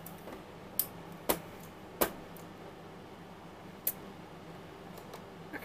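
Four short, sharp plastic clicks and taps from handling the lid of a Cricut cutting machine, spread over a few seconds, over a faint steady low hum.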